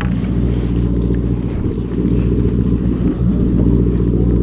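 A boat's engine running steadily, a low drone with an even, unchanging pitch.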